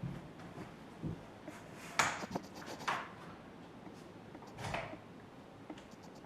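Handling noises while unpacking: a sharp knock about two seconds in, then scraping and rustling, and a short swish near the end.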